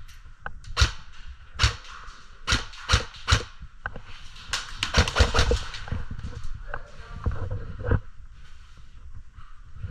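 Airsoft guns firing in an indoor arena: sharp single cracks every half second or so, then a quick volley about five seconds in and one more shot near the end.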